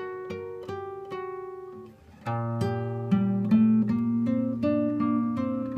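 Background music of acoustic guitar, single picked notes that ring and fade, turning fuller and louder from about two seconds in.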